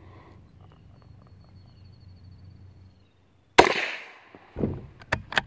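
A Ruger American bolt-action rifle in .22 WMR (.22 Magnum) fires one shot about three and a half seconds in, a sharp crack with a short ringing tail. About a second later come a thud and a few quick metallic clicks as the bolt is worked.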